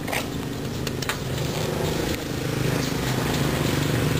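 An engine running steadily at idle, typical of a motor vehicle or small engine, with a couple of light clicks about a second apart near the start.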